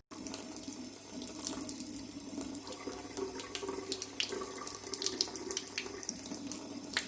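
Water running from a tap into a sink: a steady splashing rush with many short, sharp splashes on top.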